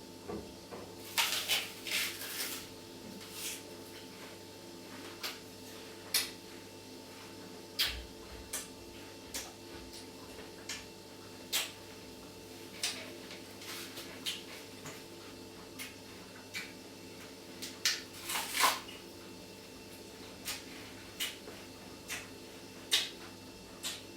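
Irregular clicks and knocks, about two dozen spread unevenly, over a steady low hum. The clicks cluster about a second in and again near the end, where the loudest knock falls.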